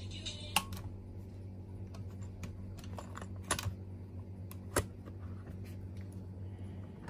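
Plastic clicks from a 1980s Sony Walkman cassette player as its stop/eject key is pressed and the cassette door pops open: one sharp click about half a second in, then a few more clicks around three and a half and five seconds, with lighter ticks between.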